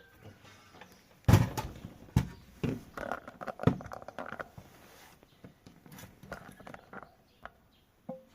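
Handling noise on a workbench: a few sharp knocks and rattles about a second in, the first the loudest, followed by fainter scattered clicks as things are moved and set down.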